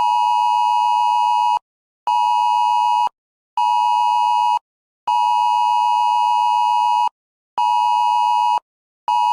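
Electronic alert tone of a mock emergency broadcast: one steady beep sounding in a repeating long-short-short pattern. Each long beep lasts about two seconds and each short one about a second, with half-second gaps between them.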